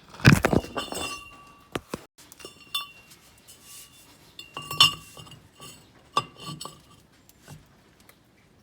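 Metal clinking: small steel parts and hand tools knocking together with a short ringing, in a cluster right at the start and again a few seconds in, fading out near the end.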